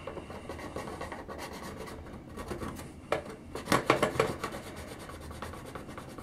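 Rapid back-and-forth scrubbing on a toy vehicle's hard plastic body, rubbing off black marks with rubbing alcohol. A scratchy rubbing that grows louder for about a second a little past the middle.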